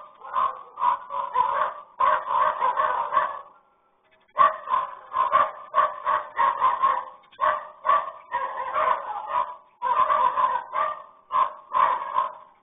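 A dog barking over and over in quick bursts of several barks a second, with a short break about four seconds in, heard through a security camera's thin microphone.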